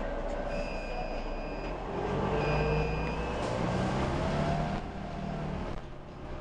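Articulated city bus heard from inside the cabin: engine and road rumble, louder in the middle, as the bus runs alongside a station platform. Two steady beeps, each about a second long, sound about half a second and two and a half seconds in, and a whine rises and then falls in pitch.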